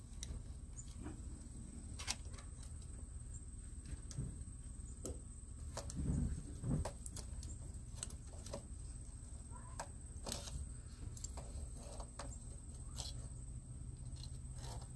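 Scattered light metal clicks and taps from handling and adjusting a clamp-on hand-crank chain sharpener on a chainsaw bar, with two heavier knocks about six to seven seconds in.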